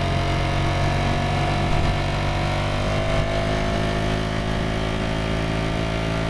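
Ducati Streetfighter V4S's V4 engine and exhaust running steadily, its pitch holding nearly level.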